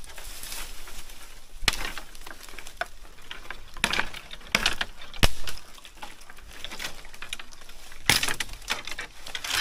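Footsteps crunching through dry leaf litter and twigs while pushing through dry brush, with irregular sharp snaps and crackles, the loudest about five seconds in.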